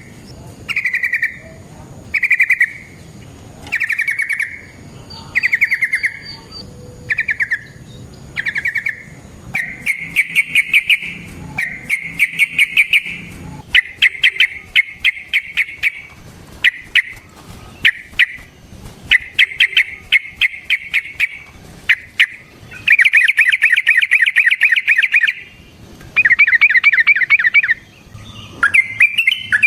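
Yellow-vented bulbul (trucukan) singing loudly. For the first several seconds it gives short bubbling phrases about once a second. Then it breaks into longer rapid rolling runs of fast repeated notes with short pauses between them.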